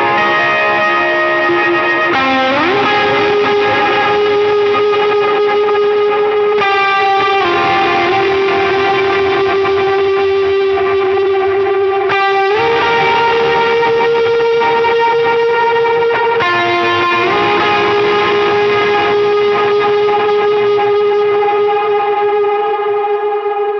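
Electric guitar through a Line 6 Helix amp-modeler preset, playing a slow lead melody of long held notes with delay and reverb. It slides up into a new note a few times, and the last note fades away near the end.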